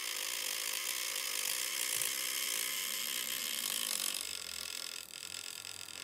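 Small electric cooling fan running at speed, a steady whirring rush with several steady tones in it; about five seconds in, as a hobby servo's arm swings near the fan, the sound drops a little and its tone changes.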